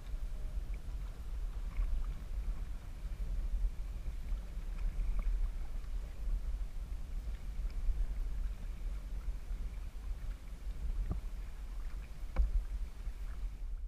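Kayak paddle strokes in river water, with a steady low rumble of wind on the microphone. A few light knocks come through, the loudest about twelve seconds in.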